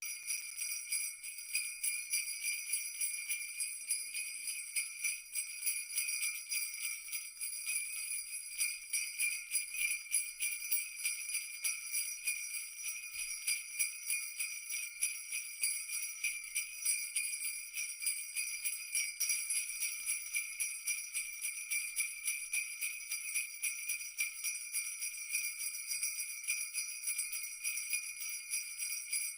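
Jingle bells, like sleigh bells, shaken continuously in a fast, even rattle.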